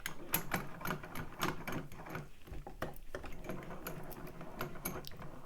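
Irregular small metallic clicks and taps, about three or four a second, from a Trioving mortise lock cylinder being handled and set in a bench vise.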